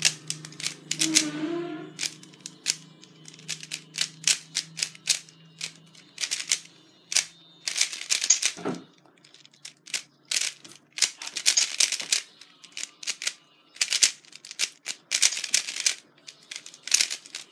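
MoYu Aolong V2 3x3 plastic speed cube being turned fast during a timed solve: rapid, irregular clicking and clacking of the layers, in quick runs with short pauses between them.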